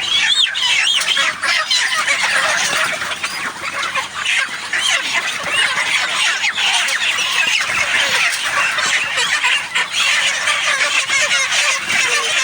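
A large flock of broiler chickens about five weeks old calling together: a steady, dense mass of overlapping peeps and clucks.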